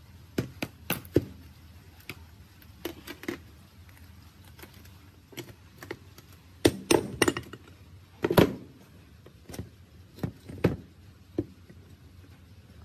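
Metal clinks and knocks from handling a small engine's flywheel, crankcase and hand tools on a workbench. They come as scattered sharp clicks in small clusters, the loudest about seven and eight seconds in.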